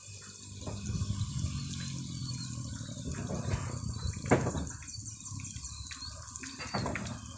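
Insects trilling in a steady high-pitched chorus, with a few short bird chirps and one sharp knock about four seconds in.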